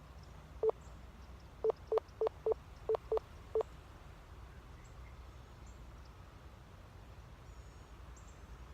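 Eight short, sharp beeps of the same pitch in an uneven, Morse-like pattern: one alone, then a quick run of seven over about two seconds. These are the beeps taken for spirits signalling in Morse code.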